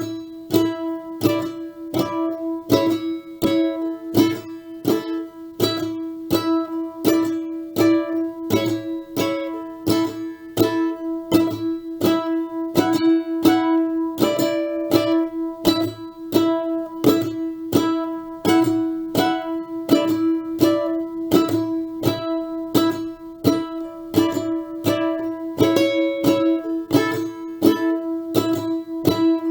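Background music on a plucked string instrument, strummed with a steady beat of about two strokes a second.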